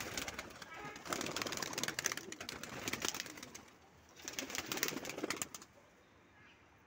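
Domestic pigeons moving about in a flock, cooing and fluttering, with two stretches of rapid clicking and rustling of wings and feet.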